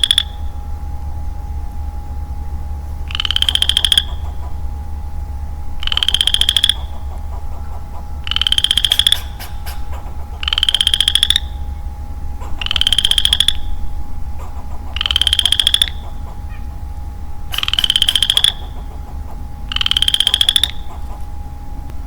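A lone male Western chorus frog calling over and over, about eight times, one call every two seconds or so. Each call is a short rattling trill that rises in pitch, like a thumbnail run along the teeth of a comb.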